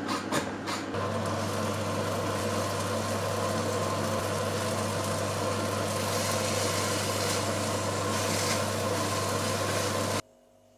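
An electric kitchen appliance running with a steady hum and whirring noise, which cuts off suddenly near the end.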